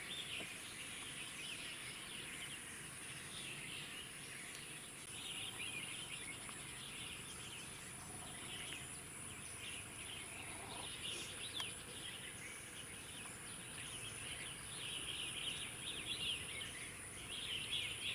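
Outdoor ambience: many small birds chirping in repeated bursts over a steady high-pitched insect drone.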